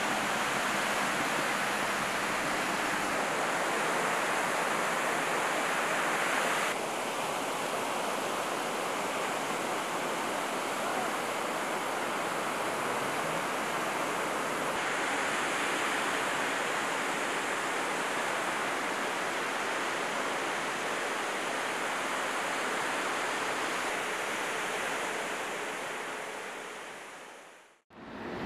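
Surf breaking and washing on a beach: a steady rushing of waves that changes character twice, then fades out near the end.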